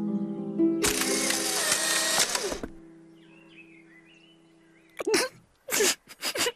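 Cartoon soundtrack: a sustained, mysterious-sounding musical chord, built up note by note, with a loud whooshing sound effect for about two seconds. A few short, sharp sounds follow near the end.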